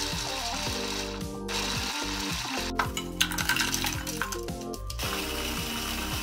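Electric mini chopper grinding roasted almonds, a steady gritty whir that stops after about a second and a half. Then dry wafer rolls clatter into the plastic chopper bowl, and near the end the chopper starts again, crushing them. Background music plays throughout.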